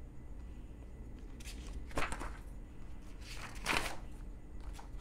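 Paper rustling as a printed sheet is shifted on a desk: two brief swishes, about two seconds in and again nearer four seconds.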